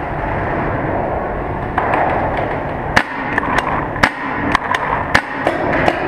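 Paintball markers firing: sharp single pops, scattered from about halfway through, then coming faster near the end, over a steady background noise.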